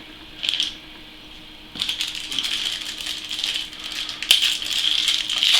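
Dry rattling and crinkling of small items being handled, starting about two seconds in as a dense run of small clicks and growing louder, with a short rustle just before.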